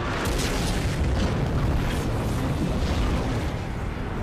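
Film sound effects of an airliner crashing and breaking apart on the ground: a steady, deep rumble of fire and wreckage with scattered crashes of debris.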